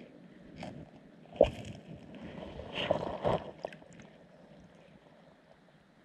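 Water sloshing and gurgling, heard underwater through a camera housing, with a few sharp knocks; the loudest knock comes about one and a half seconds in, and a second cluster follows about a second later.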